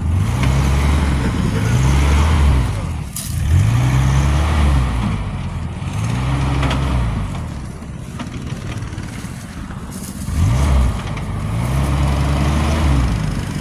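A 1987 Toyota pickup's stock 22RE four-cylinder engine pulling at low speed while rock crawling. Its revs rise and fall in repeated throttle blips, about every three seconds.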